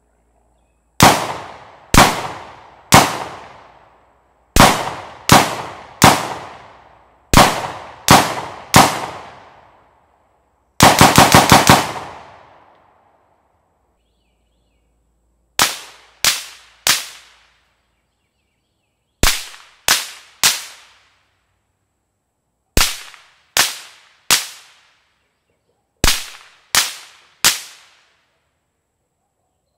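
Rifle shots from a Knight's Armament 10.5-inch SBR in 5.56, fired unsuppressed as a baseline: three groups of three with long echoing tails, then a rapid string of about seven shots. From about halfway, the rifle is fired through a PWS BDE 3D-printed titanium suppressor in its long configuration with 55-grain M193 ball, in four groups of three shorter, sharper reports.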